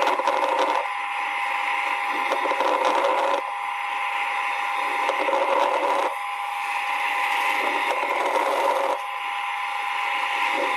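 Lung sounds heard through a stethoscope: breathing that swells and fades about every three seconds, with fine crackles (rales) over it, the kind associated with possible pneumonia.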